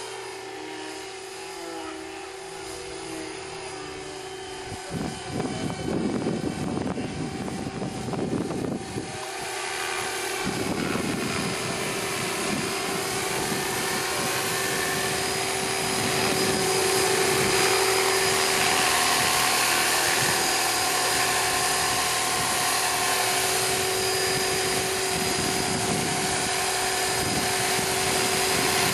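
SJM430 radio-controlled helicopter in flight, its rotor and motor making a steady whine. The whine grows louder as the helicopter comes down and in close.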